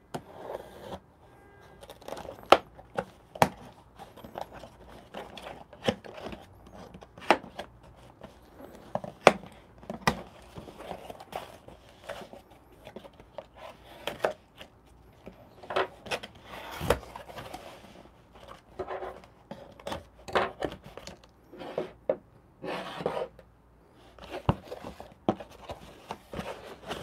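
Folding knife slicing through packing tape on a cardboard shipping box, then the cardboard flaps being cut, pulled open and handled: a run of irregular scrapes, taps, tearing and crinkling.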